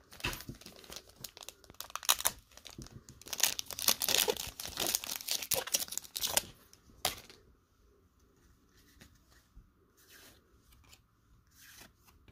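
Wrapper of a Panini Contenders football card pack being torn open and crinkled, loudest about three to six seconds in. A single sharp click follows near the middle, then only faint rustling.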